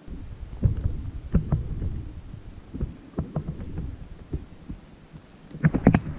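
Footsteps and brush rustling picked up by a handheld action camera, heard as irregular low thumps over a steady low rumble, with a quick run of sharp crackles near the end.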